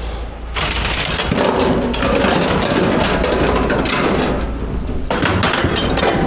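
Scrap being handled and loaded: a continuous run of knocks, clatter and scraping.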